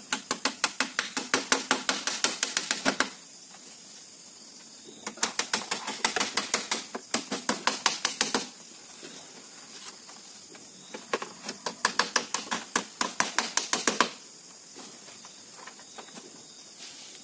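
Rapid, light knocking on a woven bamboo wall panel, about seven knocks a second, in three runs of about three seconds each.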